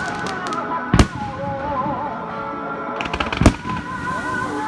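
Fireworks going off: two sharp bangs, about a second in and about three and a half seconds in, with smaller crackling pops around them, over music playing.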